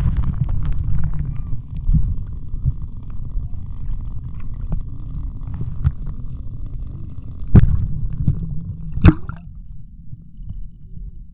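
Geothermal rumbling and gurgling heard underwater in a hot spring, a steady deep rumble with scattered small pops and two loud pops about a second and a half apart in the second half.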